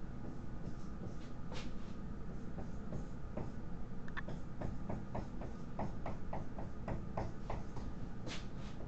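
Dry-erase marker writing on a whiteboard: a run of short taps and strokes, thickest in the second half, over a steady low room hum.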